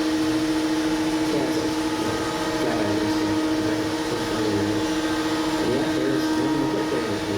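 A machine running with a steady, constant-pitched hum. A faint voice rises and falls over it at times.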